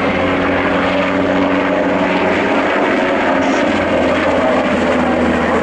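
NH90 military helicopter flying past in a display, its turbine engines and rotor blades making a loud, steady sound.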